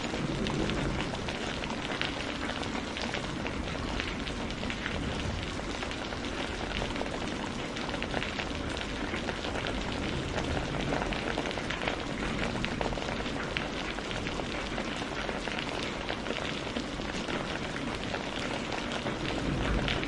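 Steady rain falling, a dense even patter of many drops striking a surface.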